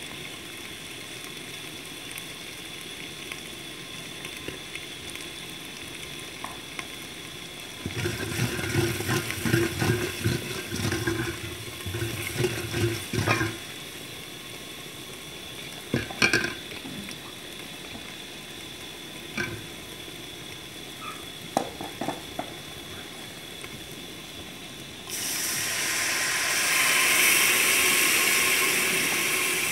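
Masala paste sizzling gently in hot ghee in an aluminium pot, with a steel spoon scraping and knocking against the pot as it is stirred about eight seconds in. Near the end, water is poured in and the hot ghee gives a sudden loud, steaming hiss.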